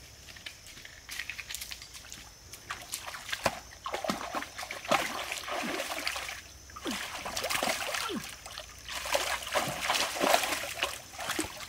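Hands and feet splashing and sloshing in a shallow, muddy stream pool while wading and groping in the water, with a few light knocks at first and the splashing getting busier from about four seconds in.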